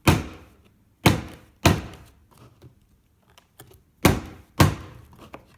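A puzzle box being given sharp whacks against a surface, five hard knocks falling in pairs about half a second apart like a heartbeat. The blows are meant to jolt an internal magnet and ball bearing loose and release the drawer's lock.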